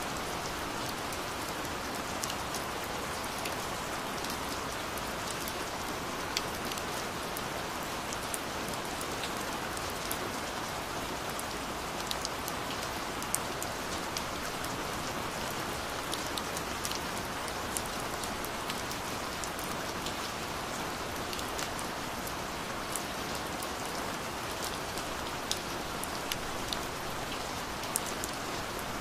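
Gentle rain falling steadily: an even hiss of rain with scattered sharp ticks of single drops hitting nearby surfaces.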